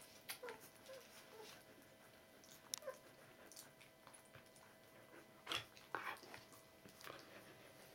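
Faint sounds of two-week-old Border Collie puppies nursing: soft wet suckling smacks and a few tiny squeaks in the first three seconds. There are two louder clicks or rustles about five and a half and six seconds in.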